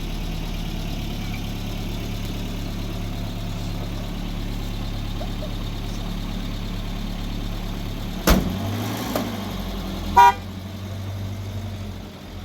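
Motor vehicle engine running steadily, with a sharp knock about eight seconds in and a short horn toot about two seconds later.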